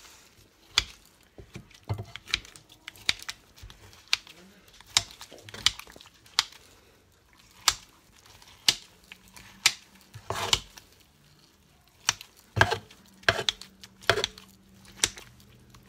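Hand-held chopping tool chopping cooked chicken and vegetables in a stoneware deep covered baker: irregular sharp knocks of the blade against the stoneware, roughly one a second.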